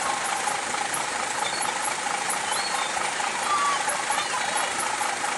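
Bus engine running steadily amid dense street noise, with a faint steady tone and a few brief high glides over it.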